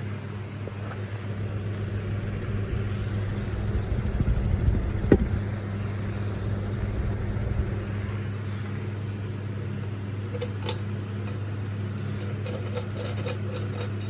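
Disney/Pixar Cars-themed ceiling fan running with a steady low motor hum. A low rumble swells in the middle, with one sharp click about five seconds in, and light clicking comes near the end.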